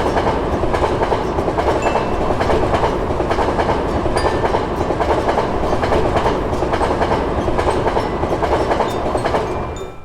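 A train passing, its wheels clattering steadily over the rails, stopping abruptly at the end.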